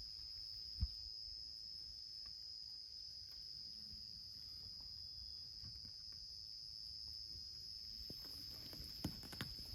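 Crickets chirring in a steady, high, continuous chorus. A soft low thump about a second in and a few light knocks near the end.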